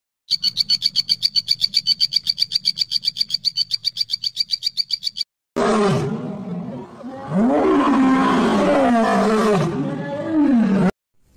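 A rapid, even trill of high pips, about eight a second, for the first five seconds; then a lion growling, a run of rising-and-falling growls.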